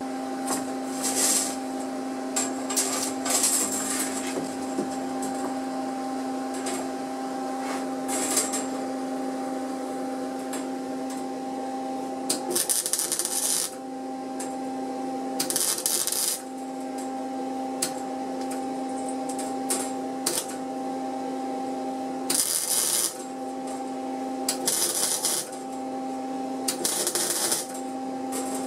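Flux-core MIG welder welding the joint of a bandsaw blade: a steady electrical hum broken about nine times by short spells of arc crackle, each about a second long or less.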